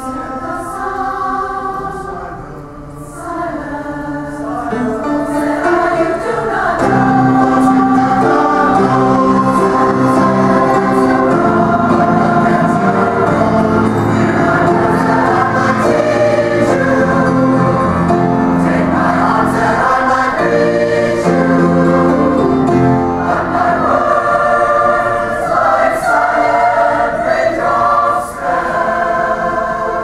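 Mixed adult choir singing in parts, men's and women's voices together, starting softly and swelling to full voice about six seconds in.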